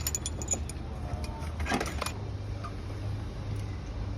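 Metallic clinks and rattles of hand tools and engine parts being handled during engine work, clustered in the first couple of seconds, over a steady low hum.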